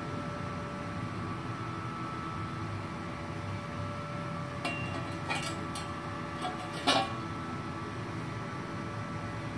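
A few light metallic clinks and knocks as a welded stainless steel tube is handled and set down on the workbench, the loudest knock about seven seconds in, over a steady hum.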